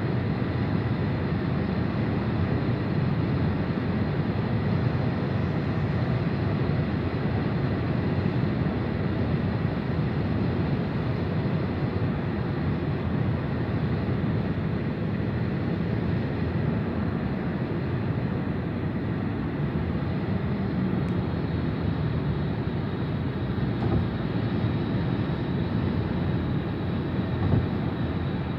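Steady road noise inside a car cruising on a highway: tyre and engine rumble with no change in pace.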